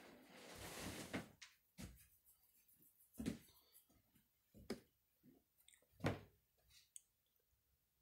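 Faint handling noise: a soft rustle in the first second, then about four separate soft bumps a second or more apart, the loudest near the end.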